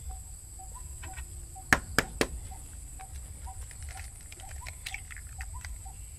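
An egg is rapped three times in quick succession against the rim of a glass bowl to crack it, followed by lighter clicks of the shell being pulled apart over the bowl.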